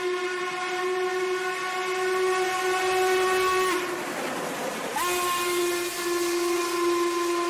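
Norfolk and Western 1218, a Class A 2-6-6-4 articulated steam locomotive, blowing its steam whistle in long steady blasts as it passes. One blast ends about three and a half seconds in, and another starts about a second and a half later. Between them the passing engine and train make a rushing, hissing noise.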